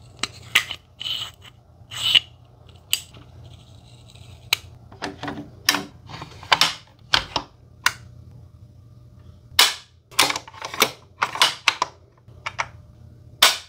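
About twenty sharp cracks and clicks, irregularly spaced and some in quick pairs, over a steady low hum.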